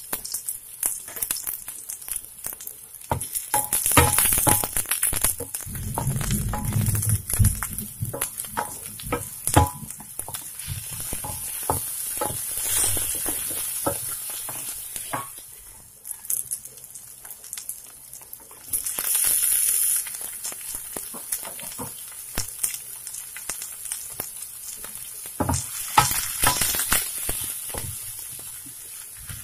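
Sliced onions sizzling in hot oil in a nonstick frying pan. A spatula clicks and scrapes against the pan as they are stirred.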